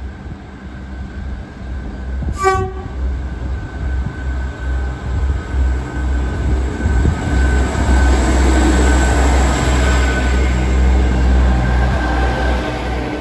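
Class 158 diesel multiple unit approaching along the platform: one short horn toot about two seconds in, then the diesel engine rumble and wheel noise growing louder as the train draws alongside.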